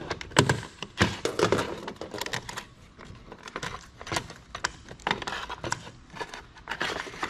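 Irregular sharp clicks and light knocks, several a second, from the plastic and metal parts of an old CD-ROM drive being handled and taken apart by hand.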